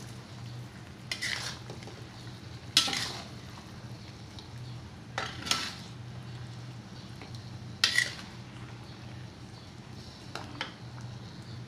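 Metal ladle scraping against a wok as chicken feet braised in soy sauce are stirred: about five scrapes a couple of seconds apart, over a steady low hum.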